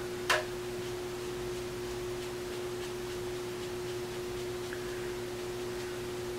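A steady, faint hum on one unchanging tone, with a single short soft burst of noise about a third of a second in.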